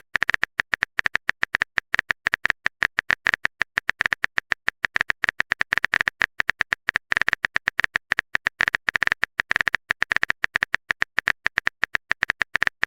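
Smartphone keyboard typing clicks: a rapid, uneven run of short taps, several a second.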